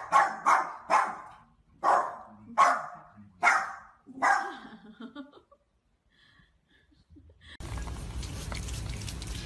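Small dog barking, about seven short sharp barks, some in quick succession, over the first four and a half seconds. A steady faint hiss of background noise begins near the end.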